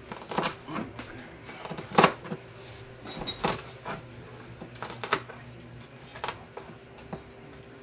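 Chef's knife chopping an onion on a cutting board: irregular sharp knocks of the blade hitting the board, the loudest about two seconds in, over a faint steady hum.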